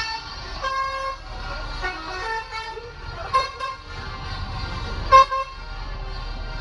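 Telolet bus horns playing a tune: a run of short musical horn notes that change pitch from note to note over a low rumble, with the two loudest blasts about three and a half and five seconds in.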